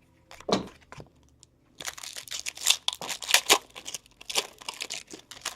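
A trading card pack wrapper being torn open and crinkled, with a couple of sharp clicks at first and then a dense crackling run of tearing and crumpling from about two seconds in.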